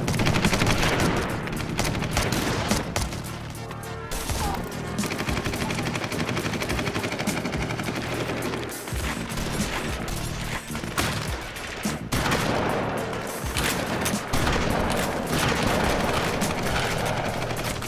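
Dense, rapid gunfire from automatic weapons, with shots overlapping almost without pause and brief lulls between volleys.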